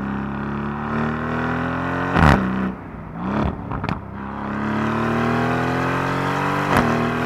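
Aston Martin Vantage Roadster's 4-litre twin-turbo V8 accelerating hard through the gears, its exhaust note climbing steadily. It drops back with a sharp crack at each upshift, about two seconds in and again near the end.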